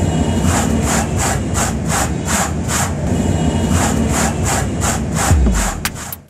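A hand tool scraping thermocol (expanded polystyrene) while carving a sculpture, in quick strokes of about three a second with a short break about halfway. A deep thump comes near the end.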